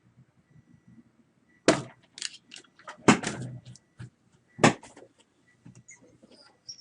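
A run of sharp clicks and knocks, three of them loud and spaced about a second and a half apart, with quieter ticks between and after.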